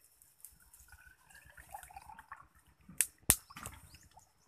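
Liquid pouring from a blackened metal kettle into a bamboo-tube cup, gurgling and splashing. About three seconds in come two sharp clicks a third of a second apart, the loudest sounds.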